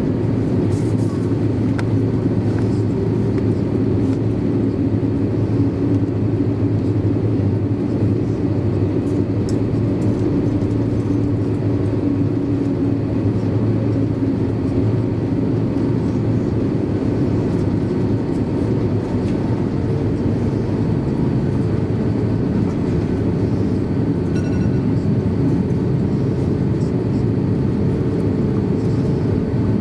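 Steady low rumble inside the cabin of an Airbus A350-900 taxiing, its Rolls-Royce Trent XWB engines at idle, with a faint steady hum.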